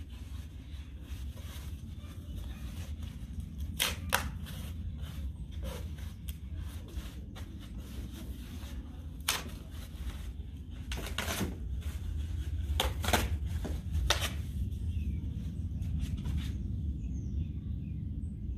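Small fire of cardboard and kindling burning in an open fire pit, with scattered sharp crackles and snaps, some close together, under a steady low rumble of wind on the microphone. Near the end the snaps thin out.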